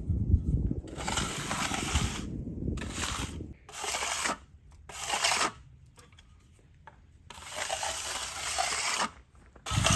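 Steel mastic trowel scraping across wet concrete on top of a foundation wall, in several swipes: a long one, two short ones, a pause, then another long one. A low rumble sits under the first few seconds.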